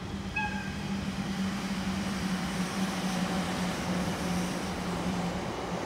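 Distant approaching freight train hauled by an EF210 electric locomotive, a growing rush and rumble of the train on the rails, with a steady low hum under it that stops near the end. A brief high tone comes about half a second in.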